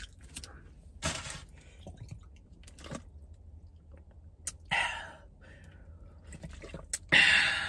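A man drinking from a plastic bottle of water: faint clicks and swallowing sounds, then a loud breathy exhale near the end.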